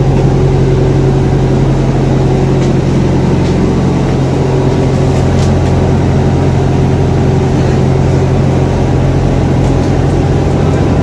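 Airport apron bus running, heard from inside its passenger cabin: a loud, steady engine hum.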